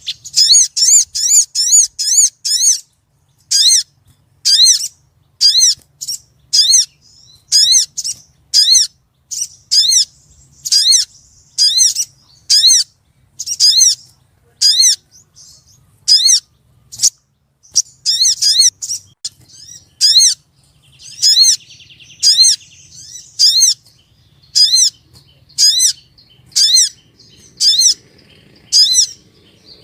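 Female sogon bird giving a call meant to draw a male: a long series of high, sharp chirps, each a quick rise and fall in pitch. About three a second in the first few seconds, then roughly one a second.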